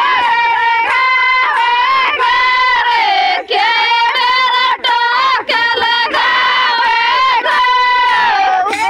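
Village women singing a folk song together in a high voice, holding long wavering notes with short breaks for breath.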